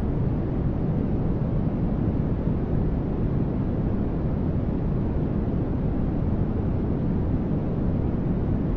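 Continuous generated static noise, steady and unchanging, with most of its weight in the low range, so it sounds like a deep, even rushing hiss rather than a bright one.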